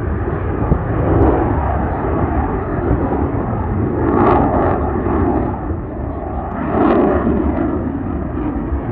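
Eurofighter Typhoon jet engines, a loud steady rumble that swells twice, about four and seven seconds in.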